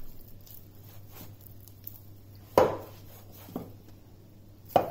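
A hand kneading crumbly atta and urad dal dough in a glass bowl: soft rustling, broken by a few sharp knocks against the bowl. The loudest knocks come about two and a half seconds in and near the end, with a smaller one between them. A faint steady hum runs underneath.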